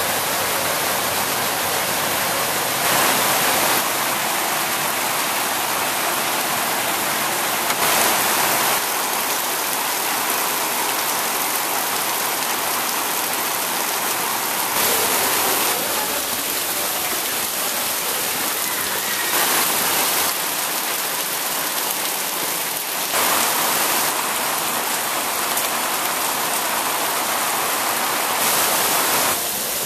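Heavy tropical rain in a steady downpour, hissing on leaves and concrete, swelling briefly every few seconds.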